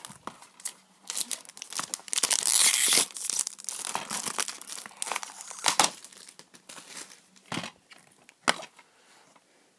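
Cellophane shrink-wrap being torn off a plastic DVD case and crinkled, loudest between about one and three seconds in. Then a few sharp clicks as the case is handled and opened.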